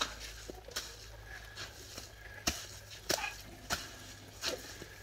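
A metal hoe working a wet cement-and-sand mix on the ground, with a short, sharp stroke about every three-quarters of a second.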